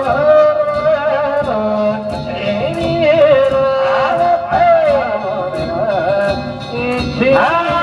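Danjiri hikiuta (hauling song): one voice singing long, drawn-out notes that bend and waver in pitch, in a melismatic folk style.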